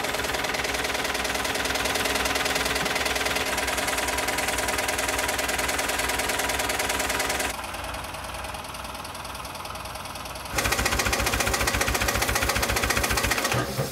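Industrial sewing machine stitching a zigzag seam in sailcloth: a fast, even clatter of needle strokes. It drops to a quieter run for about three seconds midway, then runs loud again.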